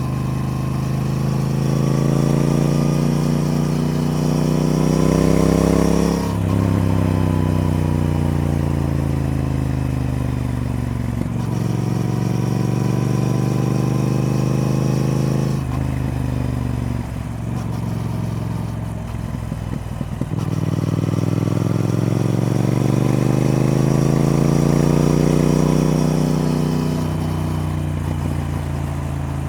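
Triumph Speed Twin's parallel-twin engine pulling through the gears. Its pitch climbs under acceleration and drops suddenly at upshifts about six and eleven seconds in, then climbs again over the second half before easing off near the end.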